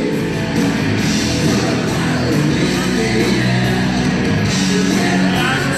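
Live rock band playing loud, heavy rock with drums and a singing voice.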